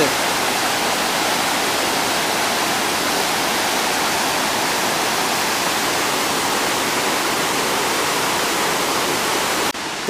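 The Zambezi River pouring over Victoria Falls in heavy flow: a steady, dense roar of falling water that does not let up.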